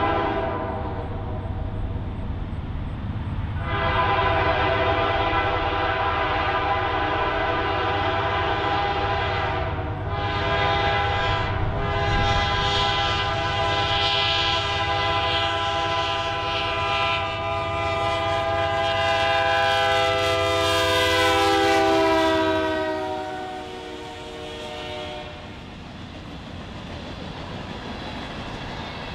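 Canadian National diesel freight locomotive's air horn blowing a crossing signal of long, long, short, long, over the rumble of the locomotives' diesel engines. The last long blast falls in pitch as the locomotive passes and cuts off. Then come the quieter wheels of empty ore hoppers rolling by.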